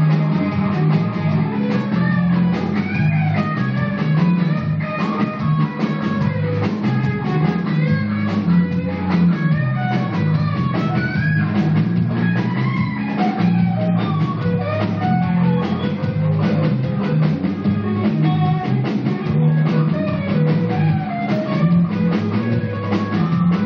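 Live rock band playing: electric guitars with bending melodic lines over a drum kit and bass, loud and continuous.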